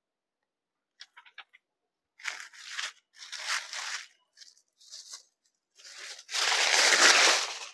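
A folded printed saree being unfolded and spread out on a counter: short bursts of fabric rustling, then a louder, longer rustle about six seconds in as the saree is lifted together with the white packing sheet folded inside it.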